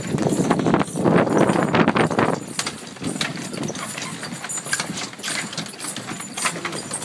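Hooves of a horse pulling a cart, clip-clopping at a trot on a dirt lane. A louder rough rushing noise fills the first two seconds or so.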